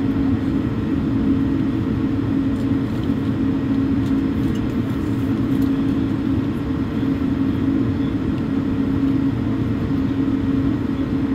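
Cabin noise of an Airbus A220-300 heard from a seat behind the wing, its Pratt & Whitney PW1500G geared turbofans at idle: a steady low rumble with an even, constant hum.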